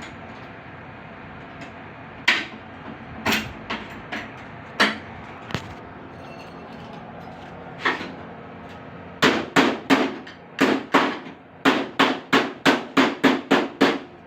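Hammer blows on car-door sheet metal during panel-beating repair: a few scattered strikes, then from about nine seconds in a quick even run of about three blows a second, over a steady low hiss.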